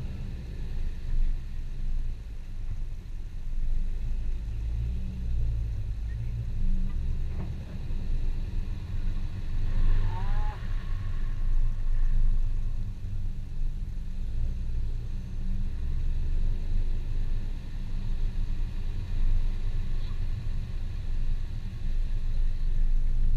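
Chevrolet Camaro's engine running at parking-lot speed, heard from a camera mounted outside on the car as a deep, uneven low sound. A brief high squeak comes about ten seconds in.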